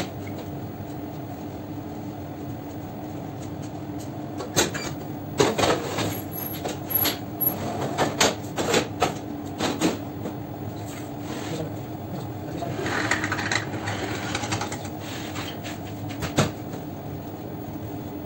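A steady machine hum of bakery equipment, with a run of knocks and clatter in the middle, one more knock near the end, and a longer rushing, scraping sound about two-thirds of the way through, as a long wooden dough-loading board and its metal trolley are handled at a deck oven.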